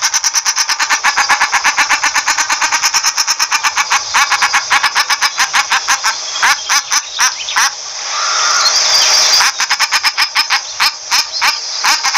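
Common shelduck calling: a fast, even run of harsh repeated notes, roughly eight to ten a second, broken about eight seconds in by a brief hiss before the calling resumes.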